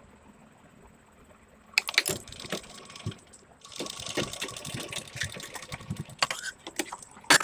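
Domestic sewing machine stitching lace onto fabric: a short run of clicking and knocking, then a steadier stretch of the machine running, ending in a few separate sharp clicks as the work is handled.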